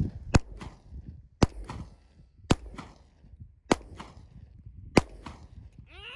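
Five pistol shots from a compact semi-automatic handgun, fired one-handed about a second apart. Each sharp crack is followed by a fainter echo.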